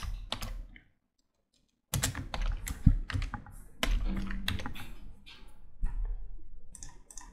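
Typing on a computer keyboard: quick, irregular key clicks that stop dead for about a second near the start, then carry on.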